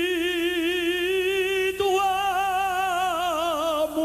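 Male ranchera singer holding one long note with wide vibrato on the word "amor", over quiet accompaniment.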